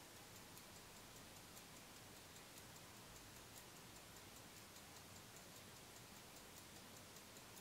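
Faint, fast, even ticking of an antique independent dead-seconds pocket watch from around 1850, its balance and escapement running.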